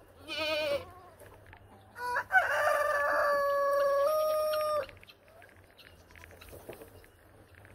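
A short wavering goat bleat, then about two seconds in a rooster crows once, a long crow of nearly three seconds.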